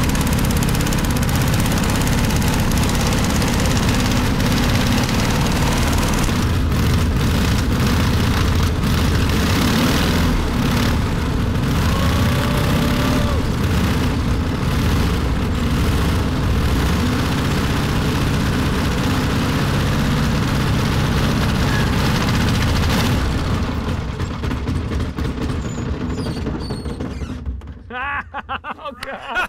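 Harley-Davidson engine of a 1920s home-built light plane running loud and steady at taxiing power, spinning the propeller. About 24 seconds in it drops off and dies away as the engine is shut down, with voices near the end.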